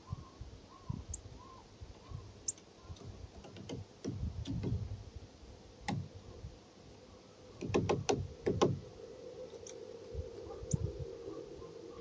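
Eurasian nuthatch at a wooden feeder: a few short, very high chirps and sharp taps, with a quick run of about half a dozen taps around eight seconds in, like a bill pecking at wood. Low rumbles of wind on the microphone, and a faint steady hum from about eight and a half seconds on.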